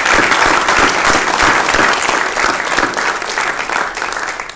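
Applause from a few dozen people clapping together, tapering off near the end.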